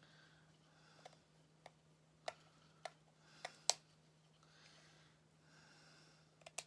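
Light, scattered clicks and ticks, about six in a few seconds, with faint rustling, from hands working a plastic rhinestone bling wrap ribbon on a craft table.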